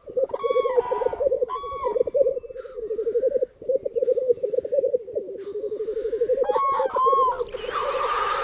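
Male black grouse at a lek rookooing: a continuous, rapidly bubbling cooing that runs on without a break. Short, higher call notes cut in over it three times.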